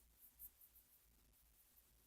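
Near silence: room tone with a low hum, and a few faint soft ticks in the first half second.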